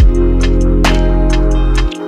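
Background music with a steady beat and deep bass; the bass drops out near the end.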